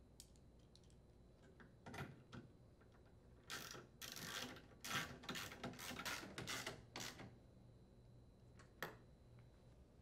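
Faint, irregular metallic clicks and rattles of a 3/8-inch socket driver seating on and turning the screws that secure the freezer drawer's front panel to its slide rails, busiest in the middle, with a last single click near the end.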